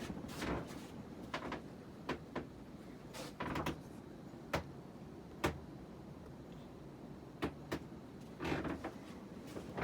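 Hunter Low Profile ceiling fan running on high speed with a steady low whir, with a dozen or so short clicks and knocks at irregular times over it.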